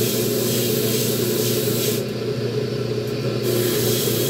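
A small electric motor humming steadily, with two long bursts of hissing: the first runs until about two seconds in, the second starts near the end. This is the sound of the pressure cooker's old handle being cleaned.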